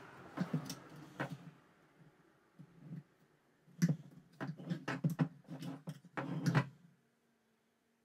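A plastic seatbelt retractor reel handled on a workbench: scraping and clicking as a pointed pick tool works at the pins in its cover, then a run of sharp knocks and taps as the reel is turned over and set down.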